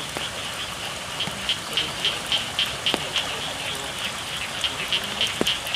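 Steady rain falling, with frogs calling in a fast, even pulse of about three to four calls a second that comes up louder about a second in.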